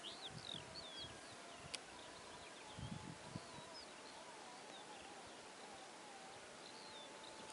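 Faint outdoor ambience: small birds chirping in quick, short, bending notes, over a faint wavering hum. There is one sharp click about two seconds in and a few low thumps a second later.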